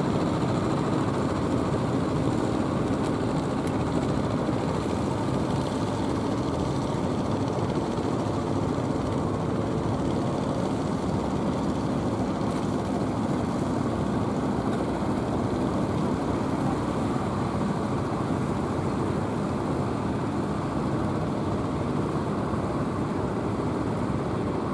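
Wooden fishing boat engines running steadily, mixed with the wash of waves against the hulls: a continuous rumble with no breaks.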